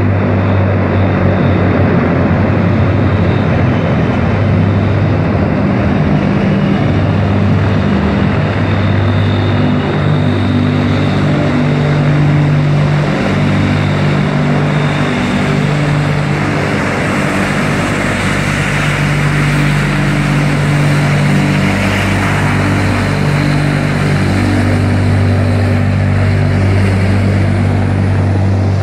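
Antonov An-22's four turboprop engines with contra-rotating propellers running as the aircraft rolls on a dirt strip: a loud, steady propeller drone of low tones over a rushing hiss.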